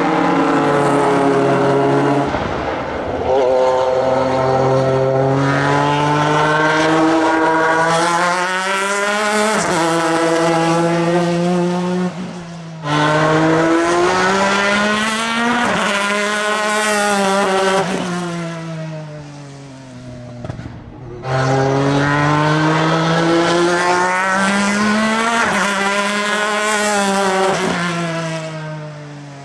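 Pilbeam MP93 LMP2 race car's JPX/Mader V6 engine at full racing speed, its pitch climbing through the gears with drops at each shift and falling away under braking. The sound cuts off abruptly twice and picks up again.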